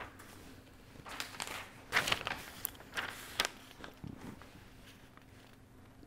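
Sheets of paper rustling as they are handled, in several short bursts over the first three and a half seconds, over a faint steady hum.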